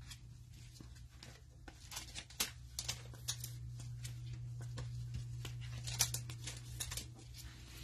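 A stack of Mosaic football cards being flipped through by hand in nitrile gloves: scattered light clicks and slides of card stock. A steady low hum runs underneath.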